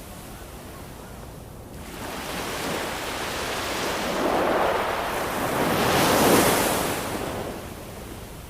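Ocean waves: a steady surf hiss, with a wave building about two seconds in, breaking loudest around six seconds and washing back out near the end.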